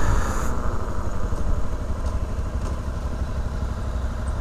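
Honda CRF motorcycle engine running at low revs as the bike slows toward a queue of traffic, easing off. A rush of wind on the microphone dies away about half a second in.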